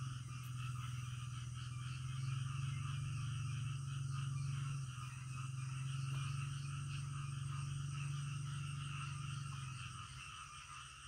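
Frogs calling in a night chorus: a low, rapidly pulsing drone that eases off near the end, with higher trilling calls over it and a steady high whine above.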